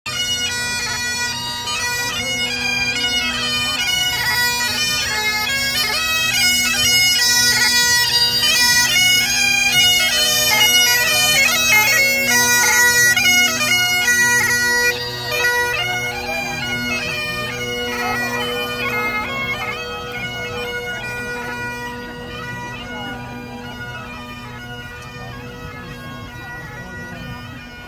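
Great Highland bagpipes playing a march tune over their steady drone. They are loudest in the middle, then fade gradually as the pipes move away.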